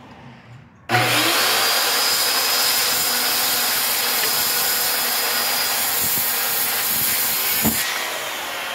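Circular saw starting up about a second in and cutting steadily through a wooden post. Near the end the trigger is released and the motor whines down in pitch.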